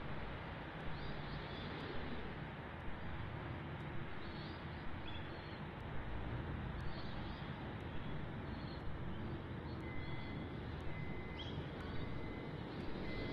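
Steady outdoor city rumble beside a rail line, with a few short, high bird chirps scattered through. About ten seconds in, a faint, thin, steady tone starts.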